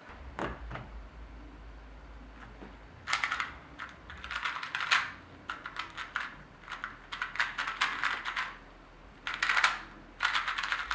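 A small 2x2 Rubik's cube being turned fast in a timed speed solve: rapid plastic clicking and clacking as the layers turn. The clicking starts about three seconds in and comes in bursts with short pauses.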